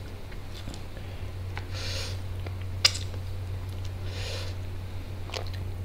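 Close-miked hand-eating sounds: fingers scooping biryani rice in an aluminium foil tray, with soft squishy mouth and chewing noises, over a steady low hum. A sharp click just before three seconds in is the loudest sound, and two short hissy puffs come about two and four seconds in.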